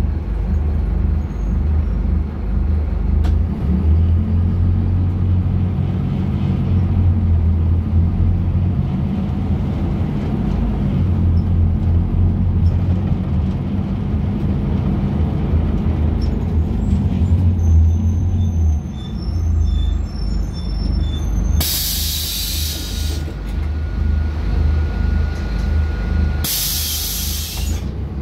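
Scania K250UB bus's diesel engine running steadily, easing off about two-thirds of the way through; then two loud bursts of compressed-air hiss from the bus's air system, about five seconds apart, with a steady high tone sounding between them.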